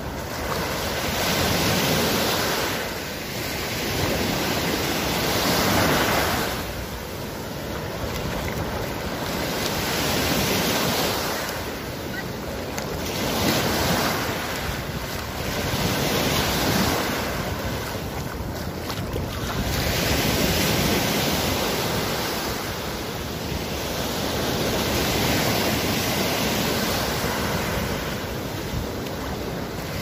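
Small sea waves breaking and washing up the sand at the shoreline, the rush of surf swelling and fading about every three to four seconds.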